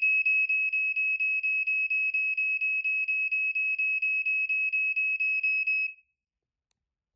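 Black & Decker Flame Buster SMK6DM3 smoke alarm sounding on test: one loud, high, steady horn tone broken by quick regular breaks about four times a second, cutting off about six seconds in.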